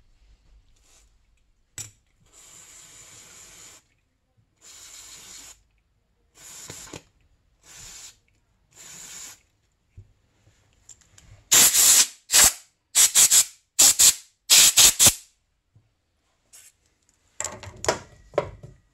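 Aerosol can of brake parts cleaner spraying in short hissing bursts, about five at first, then a run of louder, sharper bursts. Brief handling noise follows near the end.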